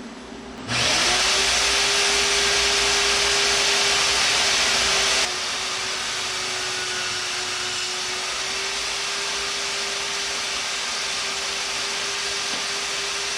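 Handheld electric power tool motor spinning up and running steadily with a constant whine. It gets noticeably quieter about five seconds in but keeps running, then winds down at the end.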